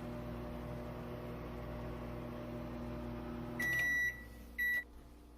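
Microwave oven running with a steady hum, then shutting off about three and a half seconds in and beeping twice, a long beep then a short one, as a 15-second heating cycle ends.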